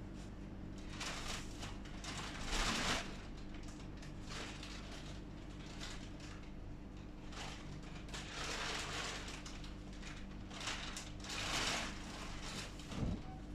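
A sleeping person snoring, with a noisy breath every few seconds and a steady low hum underneath.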